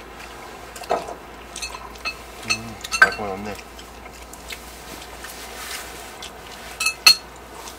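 Eating utensils and dishes clinking during a meal, a scatter of sharp clicks with two louder knocks about three and seven seconds in. A brief low murmur of voice sits in the middle.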